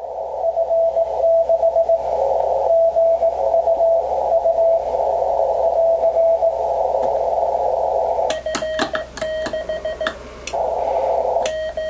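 Xiegu G106 HF transceiver receiving Morse code (CW): a keyed tone dotting and dashing inside a narrow band of receiver hiss. About eight seconds in the hiss drops out and a clean keyed sidetone with sharp clicks follows as the radio switches to sending Morse in reply, with a short return to receive hiss near the end.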